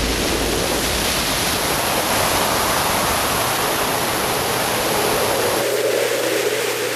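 Wind rushing over a biplane's wing-mounted camera in flight: a steady, noisy roar of airflow with the engine underneath. About five and a half seconds in it cuts abruptly to a steadier drone with a low, even engine tone.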